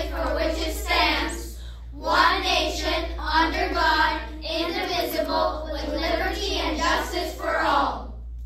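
Group of children reciting the Pledge of Allegiance in unison, finishing about eight seconds in, over a steady low hum.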